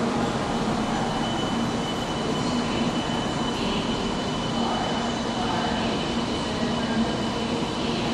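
700 Series Shinkansen train running as it pulls away, a steady rush of rail noise with a constant low hum and a faint steady high whine.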